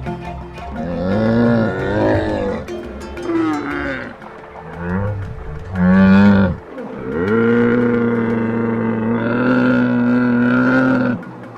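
A large animal calling: several short calls that bend in pitch, then one long, steady, low call lasting about four seconds that cuts off near the end.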